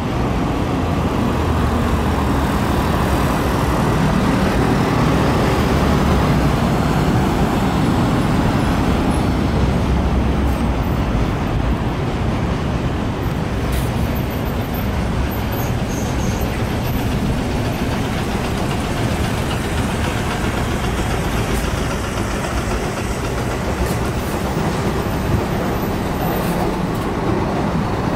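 City buses running close by over steady road-traffic noise: a continuous low rumble.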